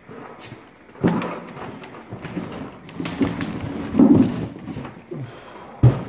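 Rummaging through a cardboard box of bagged items: plastic rustling and things shifting and knocking together in an uneven run, with one sharp knock near the end.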